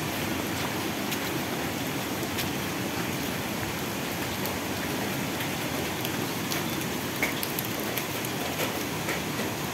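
Heavy tropical rain falling steadily, with individual drops ticking sharply now and then.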